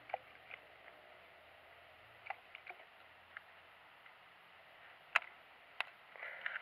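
Scattered light clicks and taps of gear being handled in a plastic kayak over a quiet background. There is a sharper knock about five seconds in and another just under a second later.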